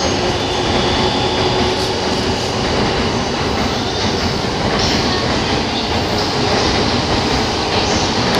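JR 185 series electric train rolling slowly along the platform: a steady rumble of wheels on the rails.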